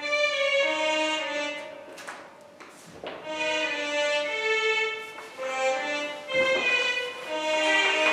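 Violin playing a slow melody of held notes, with a short lull about three seconds in.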